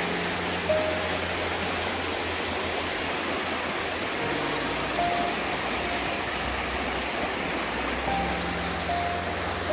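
Shallow river rushing steadily over rocks and through riffles, a constant even rush of water.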